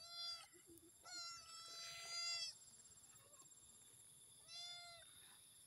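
Kitten meowing three times: a short meow, then a long drawn-out one lasting about a second and a half, then another short meow near the end.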